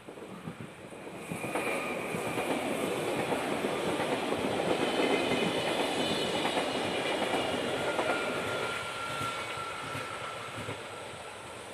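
Intercity electric multiple unit passing on the rails: a steady rumble of wheels on track that builds about a second in and fades toward the end, with a thin high whine on top.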